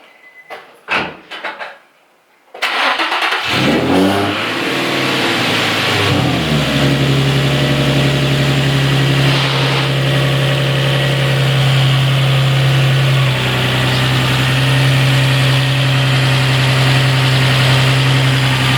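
A few short knocks, then a Nissan 350Z's 3.5-litre V6 is cranked and catches about two and a half seconds in. It revs up briefly, falls back and settles into a steady idle.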